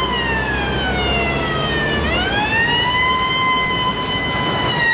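Police van siren wailing. Its pitch falls for about two seconds, then rises again and holds steady, over a low rumble.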